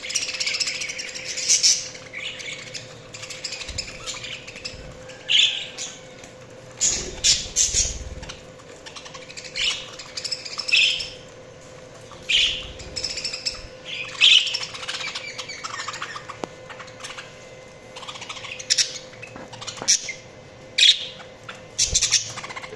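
Budgerigars chirping and chattering, with short loud sharp calls every second or two.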